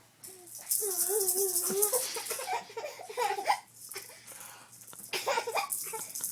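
A young child laughing in bursts while a rattling toy ball is shaken.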